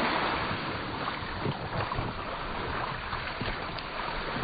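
Sea surf washing on the shore, with wind on the microphone: a steady noise.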